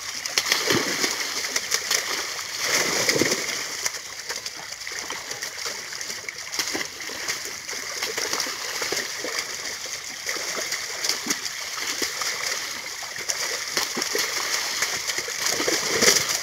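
Water splashing irregularly as a mass of fish trapped in a gathered net thrash and leap, with hands sloshing among them; the biggest splashes come about half a second in, about three seconds in, and near the end.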